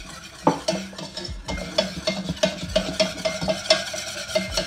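Metal wire whisk stirring a thick mixture of cocoa powder, melted chocolate and butter in a stainless steel saucepan, clicking and scraping against the pan in rapid, repeated strokes that make the pan ring.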